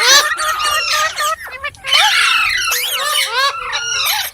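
Green parrots chattering and squawking: many quick, overlapping squeaky calls that rise and fall in pitch, with a harsh, loud burst at the start and another about two seconds in.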